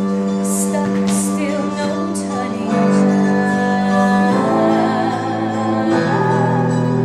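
Slow music of long held chords that change every second or two, with a singing voice.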